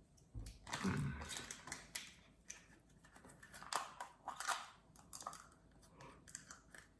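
Small plastic toy capsule and its contents being handled at a table: a run of light plastic clicks and crackling rustle, busiest about a second in and again around four seconds.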